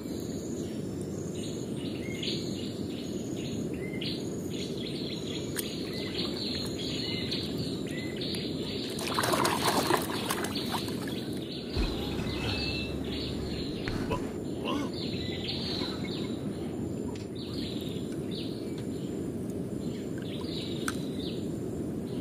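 Outdoor ambience: small birds chirping repeatedly over steady background noise, with a brief louder rush of noise about nine seconds in.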